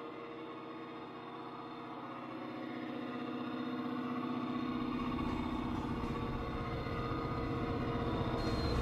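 Diesel locomotive engines running and growing louder as the train approaches, with a deep rumble coming in about five seconds in.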